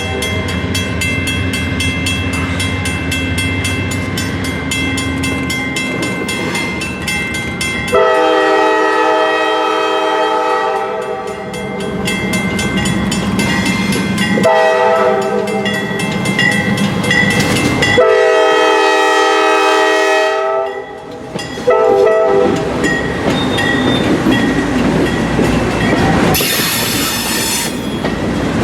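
Locomotive multi-chime air horn sounding several long blasts and a short one as a train approaches, over the rumble of the engine. Near the end the horn gives way to the rushing and clacking of the train's wheels on the rails.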